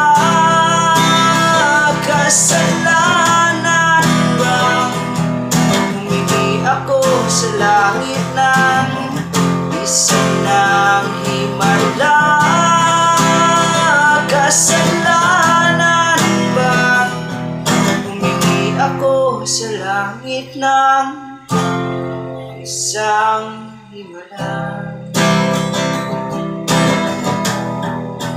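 A man singing to his own strummed acoustic guitar. The playing thins out and breaks up for a few seconds about two-thirds of the way in, then the strumming resumes.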